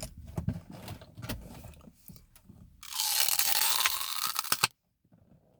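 Teeth biting into the plastic, apple-shaped Martinelli's apple juice bottle: scattered crackles, then about three seconds in a loud crunch lasting a couple of seconds that sounds like a bitten apple.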